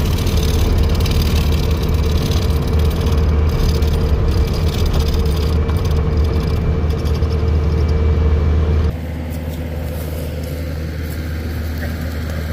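Engine of a Bobcat machine running steadily, heard from the operator's seat while it drives. About nine seconds in the sound drops suddenly to a quieter steady drone.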